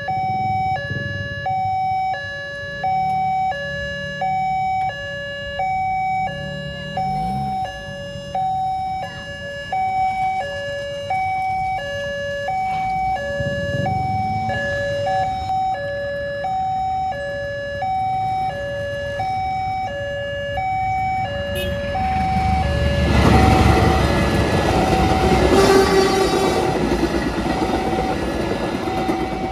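Railway level-crossing warning siren sounding a steady two-tone high-low alternation, about one cycle a second, as the crossing signals a train. From about two-thirds of the way in, a passing commuter train's rumble and wheel noise swell up under the siren and become the loudest sound.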